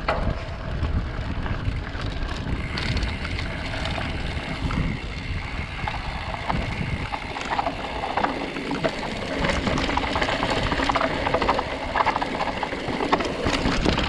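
Trailcraft Maxwell 26+ full-suspension mountain bike rolling over a dry dirt trail, tyre noise under steady wind on the microphone; from about eight seconds in, rattling and clatter from the bike as it goes down rougher, steeper ground.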